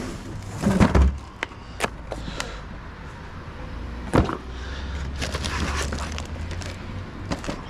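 Clattering knocks, clicks and rustles of snack and drink packages being handled and loaded into a vending machine, over a low steady hum. The loudest knocks come just under a second in and about four seconds in.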